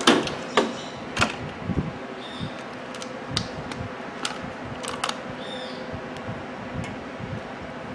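Scattered light clicks and knocks of objects being handled, the first the loudest, over a steady faint hum.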